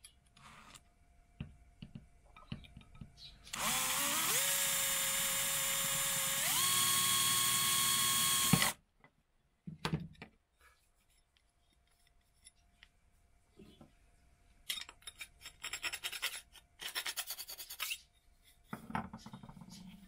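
Bosch cordless drill boring a small hole into an aluminium profile. The motor whine climbs as it spins up, steps higher about halfway through, and cuts off suddenly after about five seconds.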